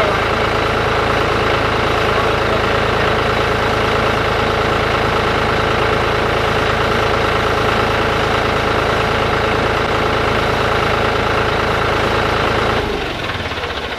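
Tractor engine idling steadily, then shutting off abruptly about 13 seconds in.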